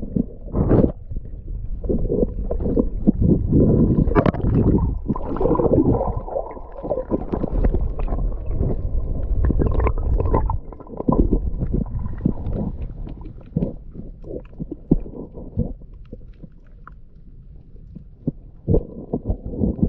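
Muffled gurgling and rumbling of seawater around a submerged camera, with irregular knocks, heard while snorkelling over coral. It thins out after about sixteen seconds.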